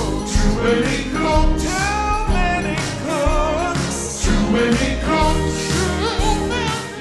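Vaporwave remix of an 1980s-sitcom-style theme song: a pop tune with sung vocals over drums and synths, playing at an even level.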